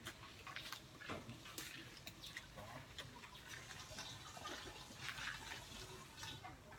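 Faint, wet chewing of a persimmon, a scatter of small irregular clicks and smacks.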